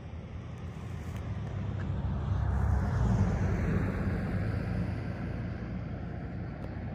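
A car driving past on the road, growing louder to its peak about three seconds in and then fading away.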